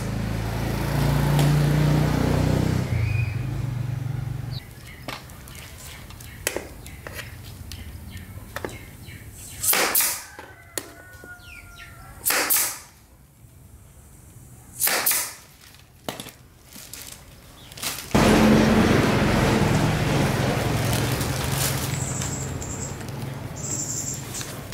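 A motor running, stopping about four seconds in, then starting again about two-thirds of the way through. In the quieter stretch between there are three short hissing blasts a couple of seconds apart, with light clicks and knocks.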